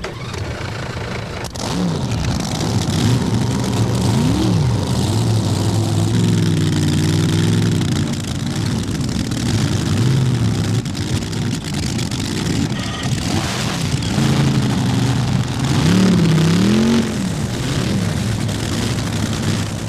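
Drag boat engines running loud, their pitch rising and falling in several revs, most clearly about four seconds in and again about sixteen seconds in.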